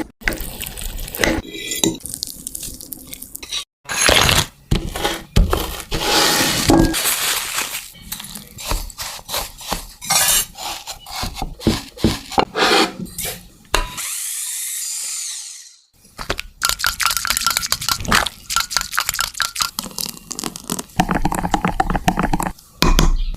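Kitchen utensils at work: irregular scraping, rubbing and clicking of tools against bowls and pans, with a smooth sweeping sound for about two seconds roughly two-thirds through.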